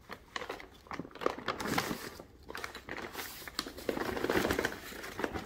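A rolled-up paper bag of hot caramel popcorn being unrolled and opened by hand, the paper crinkling and rustling in irregular bursts.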